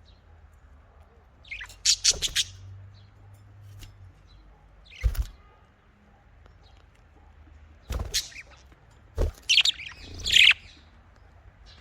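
Pet budgerigars chirping in short bursts of quick high notes, about two seconds in and again near the end. A few sharp knocks or taps fall in between.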